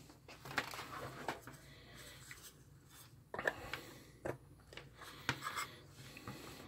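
Power cords rubbing and scraping across a wooden bench as they are handled, with a few light clicks and knocks as the plug goes into the soldering station.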